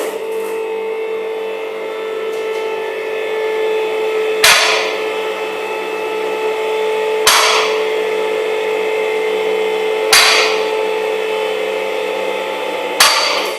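Four sharp knocks, evenly spaced about three seconds apart, over a steady humming tone that fades away at the end.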